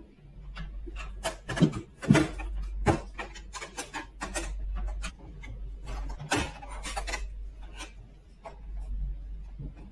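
Small plastic toy stable doors being handled and pressed onto their hinge frames: irregular sharp plastic clicks and taps with light rubbing in between.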